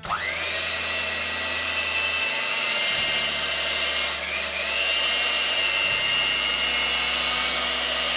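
Electric hand mixer switched on, its motor whining up to speed and then running steadily as the beaters whip eggs and sugar in a plastic bowl. About four seconds in, the pitch dips briefly and comes back slightly higher.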